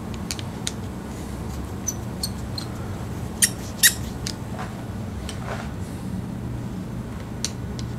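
Small clicks and light squeaks from hand work on bicycle parts over a steady low hum, with two sharper clicks close together a little before the middle.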